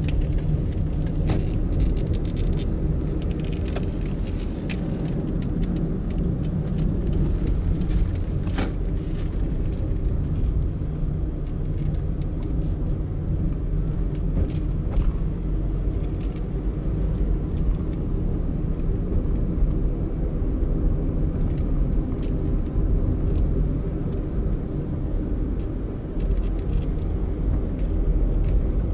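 Car driving slowly, a steady low rumble of engine and tyres on the road, with a few light clicks in roughly the first nine seconds.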